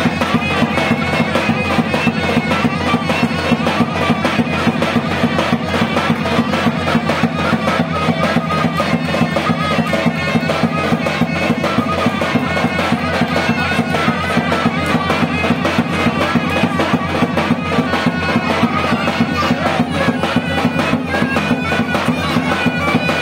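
Traditional Turkish folk wedding music: a loud, reedy wind instrument plays a melody over a steady low drone, with a fast, even drumbeat underneath.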